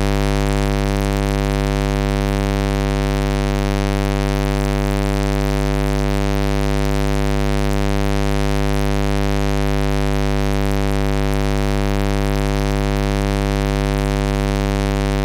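Six Sundown SA-12 subwoofers driven by a Sundown NS-1 amplifier playing a loud, steady low bass test tone on one held pitch, with a dense stack of overtones above it.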